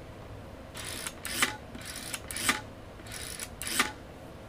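Plastic rotary dial of a Fisher-Price Chatter phone turned and let spin back three times, about a second apart, as digits are dialled. Each turn is a rattling whirr that ends in a sharp click and a brief beep.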